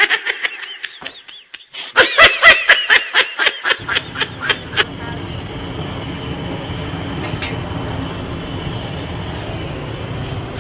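A voice laughing in quick repeated bursts for about three seconds, then a steady rumbling noise.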